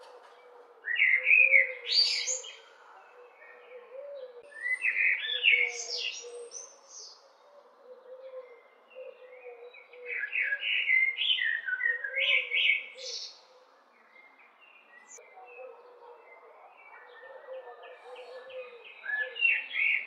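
Male common (Eurasian) blackbird singing: mellow fluted warbled phrases, each running up into a high, squeaky twitter. Three phrases come a few seconds apart, with a longer pause before a fourth begins near the end.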